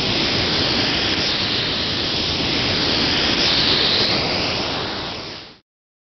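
Steady rushing noise with no tone in it, cutting off suddenly a little before the end.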